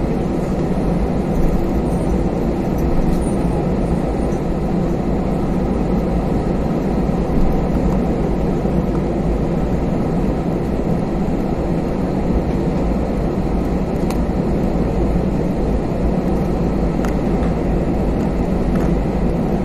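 Cabin noise inside an Airbus A320-214 taxiing: a steady low hum of its CFM56 engines at taxi power with a rumble from the airframe and wheels.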